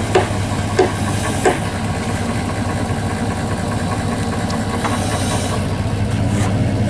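Truck engine idling steadily. A few sharp metal clinks sound in the first second and a half as the pipe and well seal are handled.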